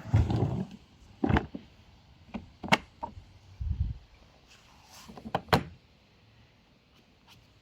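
A series of irregular knocks, clicks and thumps from the wet/dry vacuum cleaner's parts being handled, with the motor not running. The knocks are bunched in the first few seconds and stop about six seconds in.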